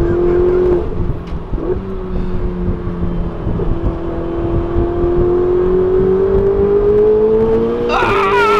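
Ferrari 488's twin-turbo V8 heard from inside the cabin, driven hard on track. The engine note drops twice in quick gear changes early on, then climbs steadily for several seconds as the car pulls through the gear. It drops again at another shift near the end.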